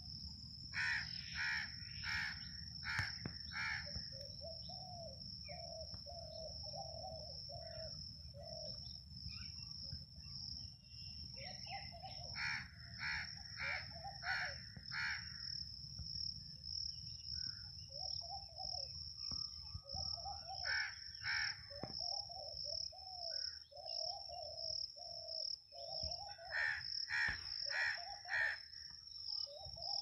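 Crows cawing in runs of four or five harsh calls, four times, with softer, lower bird calls repeating in between. A cricket's steady high trill carries on underneath.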